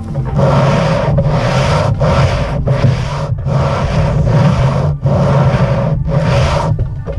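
Aluminium cylinder head of a Toyota 2AZ-FE engine pushed back and forth across wet sandpaper glued to a flat board, resurfacing its deck face by hand. About seven gritty scraping strokes with short pauses between them, one stroke in the middle longer than the rest.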